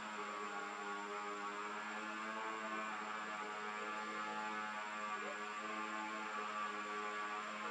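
A steady hum on one unchanging pitch, with a stack of overtones above it.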